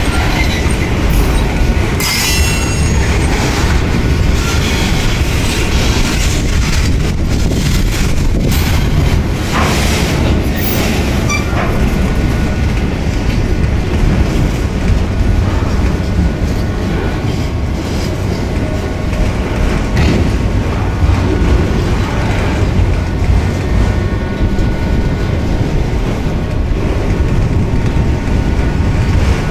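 Freight train of boxcars and enclosed autorack cars rolling past at close range: a loud, steady rumble of steel wheels on the rails, with rapid short knocks throughout.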